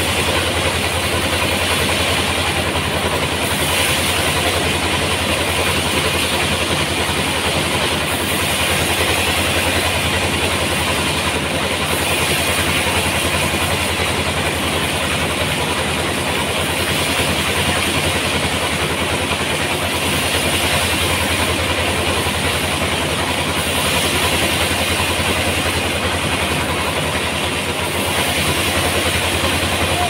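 Large band sawmill running steadily as its blade saws lengthwise through a big rain tree (trembesi) log: a constant low hum with an even sawing hiss over it.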